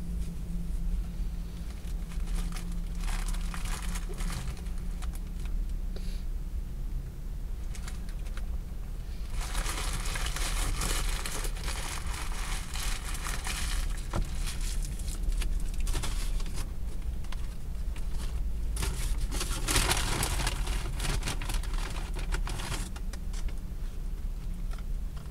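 Paper burger wrapper crinkling and rustling in irregular bursts as it is handled, loudest for a few seconds about ten seconds in and again around twenty seconds, over a steady low hum.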